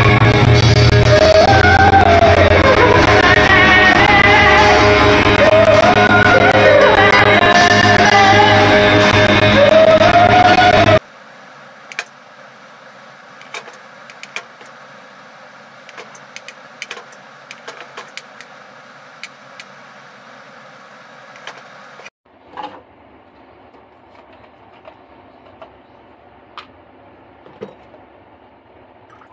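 Live band music with a woman singing, loud, cutting off suddenly about eleven seconds in. After it, a quiet steady background with scattered small clicks and knocks.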